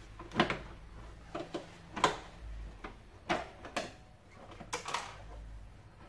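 Hard plastic knocks and clicks from the plastic upper housing of a Beko BKS 9537 canister vacuum cleaner as it is worked loose and lifted off its base by hand: about six short, sharp knocks spread over a few seconds.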